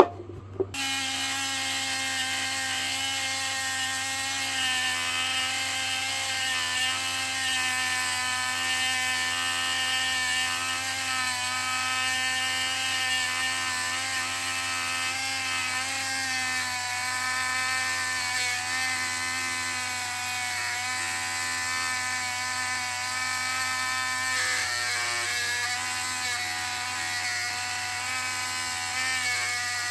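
Small Dremel-type rotary tool starting about a second in and running with a steady whine, its sanding drum grinding the corners off a small steel axe head made from a railroad spike. The pitch wavers slightly as the drum bears on the metal.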